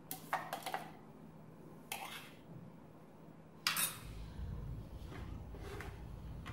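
A few sharp metallic clinks and knocks as the stainless-steel jar of a mixer grinder is handled and lifted off its base, with a faint low rumble under the last couple of seconds.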